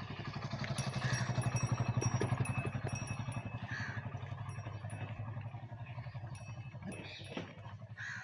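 An engine running steadily with a fast, even pulse. It grows louder about two seconds in, then slowly fades.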